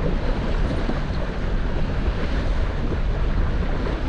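Wind buffeting the microphone over waves washing against a fishing boat on open water: a steady rushing noise with a deep rumble underneath.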